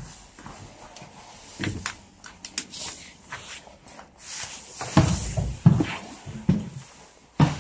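Footsteps and hollow thumps of someone walking inside an old bus over its metal floor and entrance steps, with scattered sharp clicks and knocks. The heaviest thumps come about two thirds of the way in.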